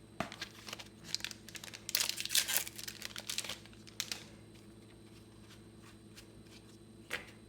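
Plastic-foil booster pack wrapper crinkling and tearing as a trading card pack is opened, loudest in the middle, followed by a few light clicks of cards being handled.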